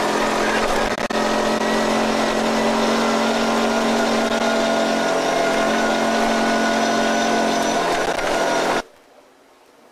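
Engine of an off-road side-by-side utility vehicle running steadily, with a rushing noise over it; the sound cuts off abruptly about a second before the end.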